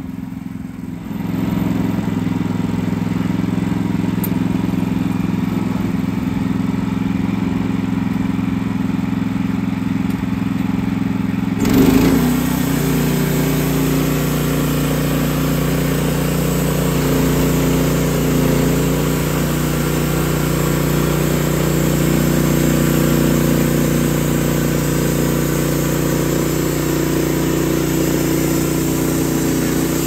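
Kohler gas engine of a Wood-Mizer LX55 portable band sawmill running steadily and driving the band blade, which is sawing eastern red cedar. The engine picks up about a second in, and a little before halfway the sound changes suddenly, with a brief bump and more hiss after it.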